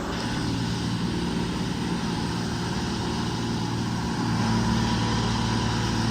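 125B excavator's diesel engine running steadily under work, its note getting stronger and a little louder about four seconds in as it takes up load.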